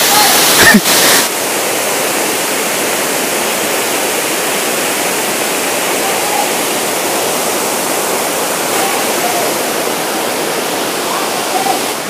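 Waterfall: a steady rush of water falling over rock ledges, a little louder for about the first second.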